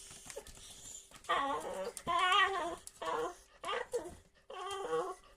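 Dachshund making a string of about five short, wavering whine-like vocal sounds while trying to get treats out of a box.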